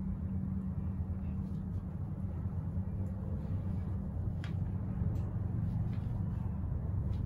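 Steady low rumble and hum inside a moving cable car gondola cabin, with a few faint ticks.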